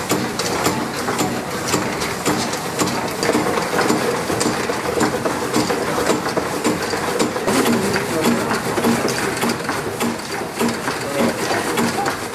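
Several small stationary steam engines running together, a steady mechanical clatter of their moving parts with many quick, sharp clicks repeating in a busy rhythm. It stops abruptly at the end.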